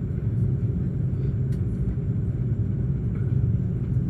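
Steady low rumble in the cabin of an Airbus A330-200 on the ground before takeoff, with its engines running.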